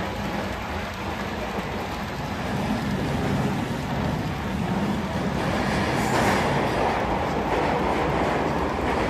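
HO scale model trains running on the layout track: a steady rolling noise of wheels on rail that grows louder about six seconds in as the intermodal well cars pass close by.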